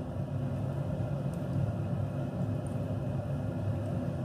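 Steady low machine hum with no clear breaks or impacts.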